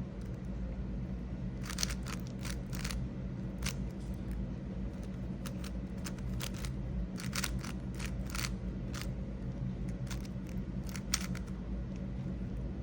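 GAN 562 M 5x5 speed cube being turned by hand: irregular plastic clicks and clacks of layer turns, often several in quick succession, over a steady low background hum.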